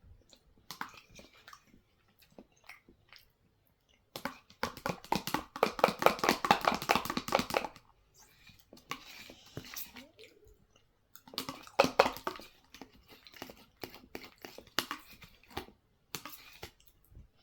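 Close-up eating sounds of cottage cheese being finished from a tub: chewing with wet mouth clicks, and a dense run of rapid clicking about four seconds in that lasts roughly four seconds, then a shorter run a few seconds later.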